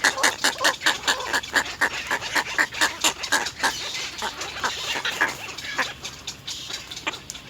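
Little egret chicks begging at the nest: a rapid, loud run of harsh, repeated calls, several a second, as they compete to be fed. The calling thins out and quietens near the end.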